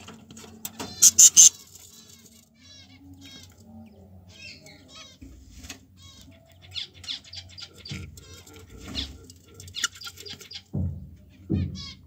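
Budgerigars chattering with short, rapid warbling chirps, with a burst of loud, sharp calls about a second in. A few dull low thumps come near the end.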